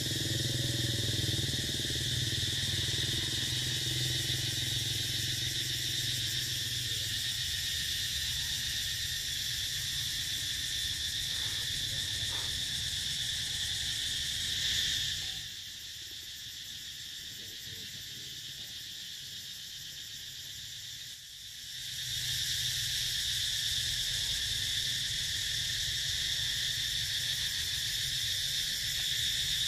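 Steady, high insect chorus buzzing continuously. It fades away for several seconds about halfway through, then comes back. A low hum lies under it for the first several seconds.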